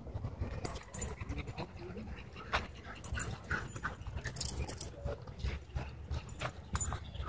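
A dog panting, with scattered faint clicks and a low rumble underneath.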